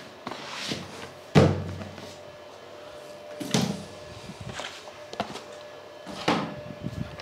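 Cardboard packaging being handled and set down on a table: a dull thump about a second and a half in, then softer knocks and small rustles.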